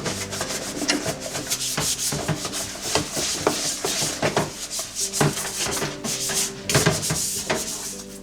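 Quick, uneven rubbing and scrubbing strokes, many in a row, from a new air fryer being scrubbed clean by hand.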